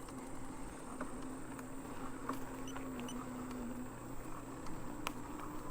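Fiido Titan e-bike's electric motor whining steadily while riding, its pitch dipping slightly about three seconds in, with a few light ticks.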